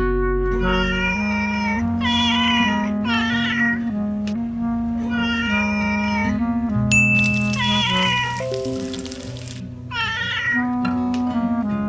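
Cartoon-style cat meows, about seven short calls every second or two, over background music. A hiss with a thin high tone runs from about seven seconds in to nine and a half.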